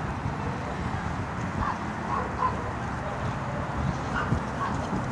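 A dog giving several short, high-pitched yips and whimpers during play, over a steady low background noise.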